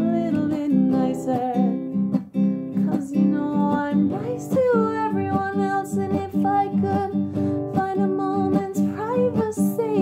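A woman singing long, wavering held notes that bend in pitch, accompanied by a strummed acoustic guitar.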